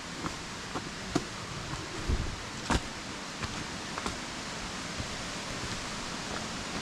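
Steady rushing outdoor noise with scattered short clicks and knocks, the loudest a pair about two to three seconds in.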